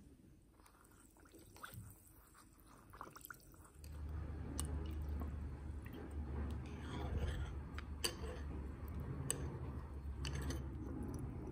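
Red cabbage leaves squished and stirred in a glass jar of dye liquid, with soft liquid sloshing and a few sharp clicks of the utensils against the glass. It grows louder about four seconds in, with a low steady hum underneath.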